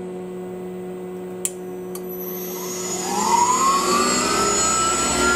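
Tormach 1100 mill's spindle motor starting under its variable-frequency drive. Two clicks about a second and a half in are followed by a whine that rises in pitch as the spindle speeds up, over a steady hum. The spindle drive is running again with its replaced brake resistor.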